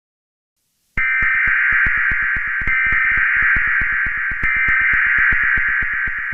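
Emergency Alert System SAME header data tones start abruptly about a second in, after silence, and are sent three times back to back. A fast regular clicking runs underneath, about seven clicks a second.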